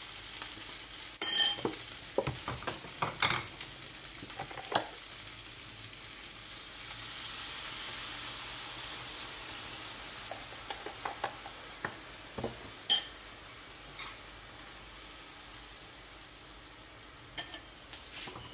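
Chopped food sizzling in a frying pan over a gas flame, with the scrapes and sharp clinks of a utensil stirring it. The sizzle swells about seven seconds in, then eases off.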